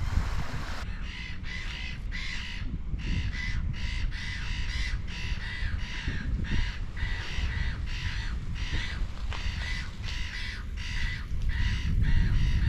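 Birds giving harsh, cawing calls over and over, a few times a second, with wind buffeting the microphone; the buffeting grows stronger near the end.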